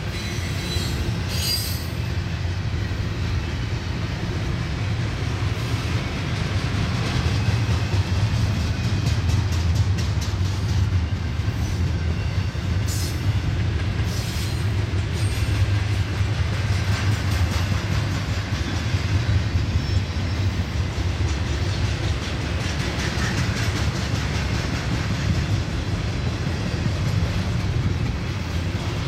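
Double-stack intermodal freight train's well cars rolling past: a steady low rumble of steel wheels on rail, with rapid clicking from the wheels over the rail and a few brief high-pitched wheel squeals.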